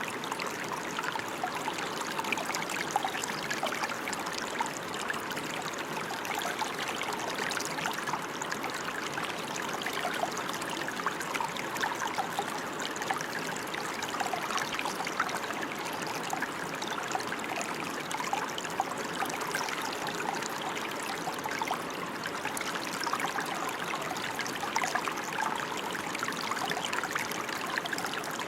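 Steady rain falling: an even hiss full of small, close-spaced drop ticks that never lets up.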